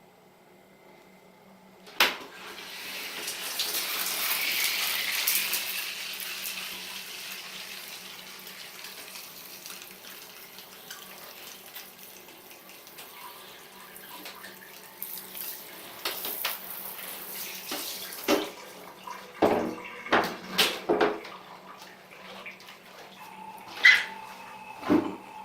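Water running and splashing in a bathroom. It starts with a click about two seconds in, is loudest for a few seconds and then slowly dies down. Scattered knocks and clatter of objects being handled follow near the end.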